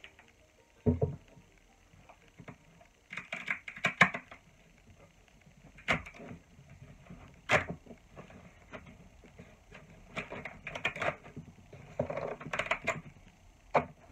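Heavy old loft-joist timbers being shifted and set down on a wooden workbench: several sharp knocks of wood on wood, with bouts of scraping as the beams slide against each other.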